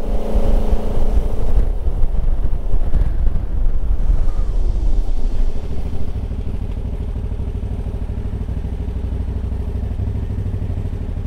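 KTM 990 SMT V-twin engine running while riding, with uneven wind buffeting on the microphone. About five seconds in the engine note falls as the bike slows, then it runs steadily and more quietly.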